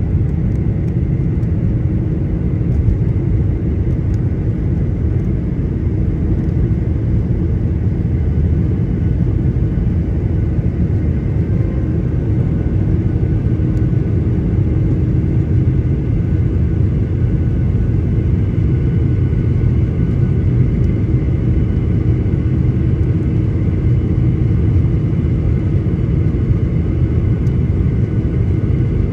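Airliner's engines and airflow making a steady, loud low rumble, with faint steady whines above it.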